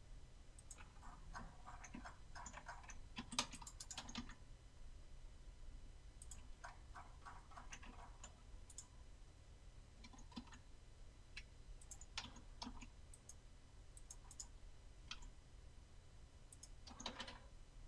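Faint computer keyboard key presses and mouse clicks in scattered small clusters, over a low steady hum.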